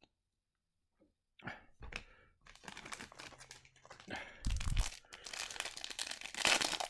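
Hockey card pack wrapper being torn open and crinkled by hand, starting about a second and a half in and getting louder toward the end, with a dull thump partway through.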